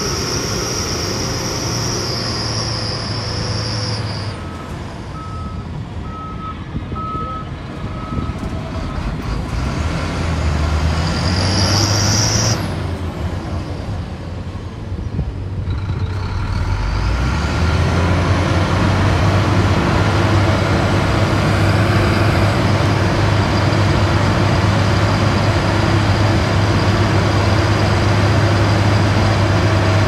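Heavy diesel engines of a SHANTUI crawler bulldozer and dump trucks running steadily, with a truck's reversing beeper sounding a short row of beeps about five seconds in and a short high hiss about twelve seconds in. The engine drone grows louder from about seventeen seconds on as a dump truck works to tip its load.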